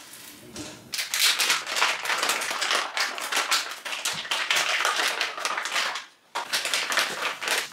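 Plastic packaging crinkling and crackling in quick, dense rustles as packs of moi moi cooking pouches are handled and opened, with a short break about six seconds in.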